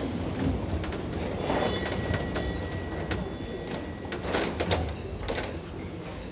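A congregation sitting down in wooden pews: shuffling, rustling and scattered knocks of wood, with a thin steady high tone for a couple of seconds in the middle.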